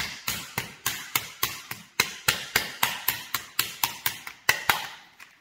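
Cocked, unloaded Glock 17 pistol knocked repeatedly against a hard surface, about four sharp knocks a second, stopping shortly before the end. The pistol does not fire: a test of the Glock's safeties against going off when struck.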